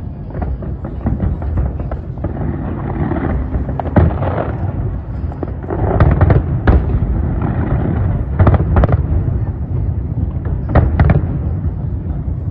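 Aerial fireworks going off in quick succession: a continuous low rumble of bangs and crackles, with clusters of sharper, louder reports about four, six, eight and a half and eleven seconds in.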